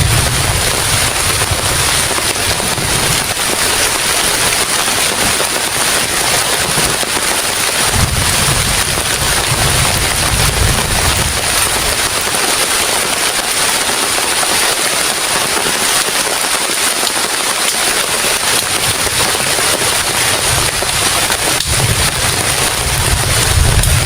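Heavy rain falling steadily, with gusts of wind buffeting the microphone at the start, about eight seconds in and again near the end.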